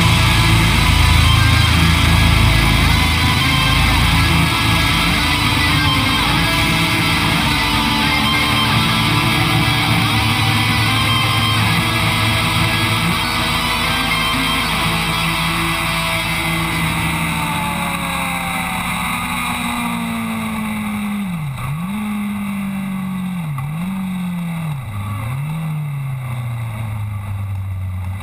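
Rock music with electric guitar, fading out over the first twenty seconds or so and giving way to a Honda CBR600RR's inline-four engine at speed. The engine note drops sharply and climbs back three times near the end, then settles lower.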